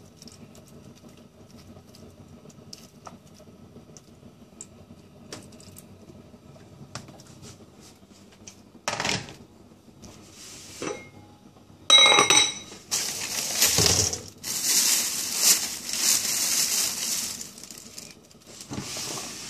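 Stainless steel cookware handled on a gas stove: a few soft knocks and clicks, then a sharp ringing metal clink about two thirds of the way in, followed by several seconds of loud harsh scraping and rushing noise.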